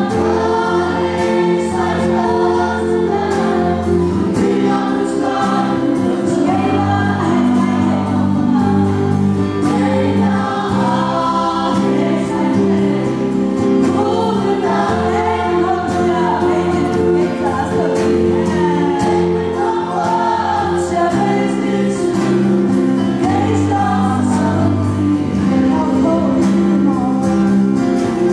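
Gospel worship song sung in chorus by a worship team and congregation, over sustained instrumental chords. The music is loud and runs without a break.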